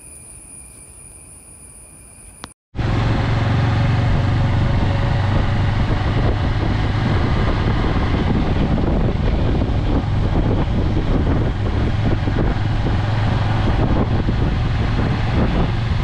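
A motorcycle riding along with its engine running steadily under loud wind rush on the microphone. It starts abruptly about three seconds in, after a short stretch of quiet background with a faint steady high-pitched tone.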